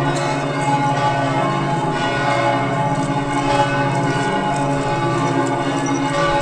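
Several church bells ringing at once in a continuous peal, their tones overlapping without a break.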